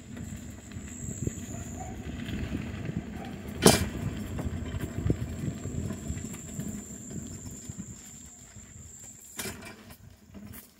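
Bicycle rattling and bumping along a rough dirt track, with a steady low rumble and many small irregular knocks. There is a sharp loud knock about three and a half seconds in and another near the end.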